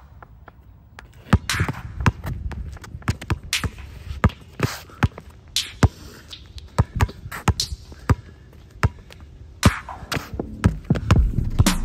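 A basketball being dribbled on an outdoor court: a run of sharp, irregular bounces, a few each second, starting after a short quiet moment. A low rumble comes in near the end.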